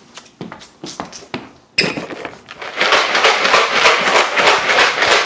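A few scattered knocks and taps, then a sharp hit and about three seconds of loud, dense rattling and rustling, as of things being handled or rummaged through.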